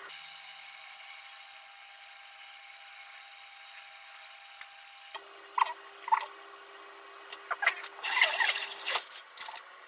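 Hands shaping and setting down a rice ball (onigiri): a few soft clicks and squishes, then about a second of loud rustling about eight seconds in.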